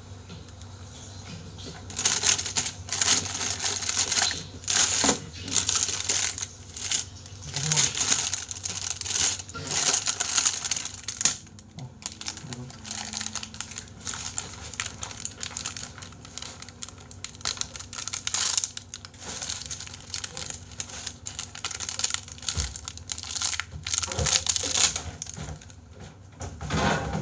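Irregular bursts of crinkling, rustling noise, starting about two seconds in and going on until near the end.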